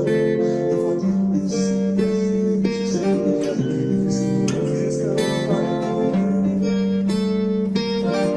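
Background music: the intro of a song played on acoustic guitar, with no singing.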